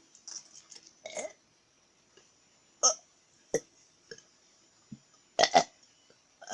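A person burping on purpose, a series of short separate burps, the loudest a quick double burp near the end.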